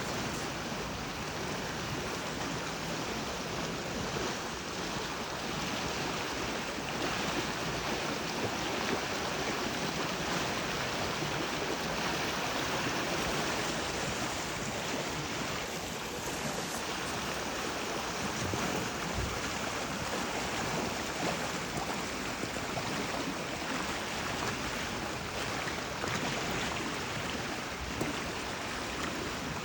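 River water rushing steadily over rocks, an even, unbroken noise.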